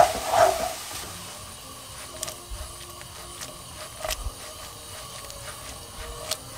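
Sliced spring onions simmering in water in a nonstick frying pan over a high gas flame, a steady faint sizzle. A few light knocks come as the pan is shaken and tossed.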